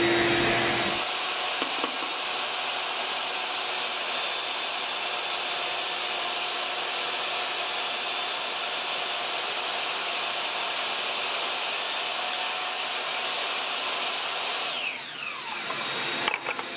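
Table saw running and crosscutting a red oak board, a steady whine through the cut. About 15 seconds in it is switched off and the blade winds down with falling pitch, followed by a knock near the end.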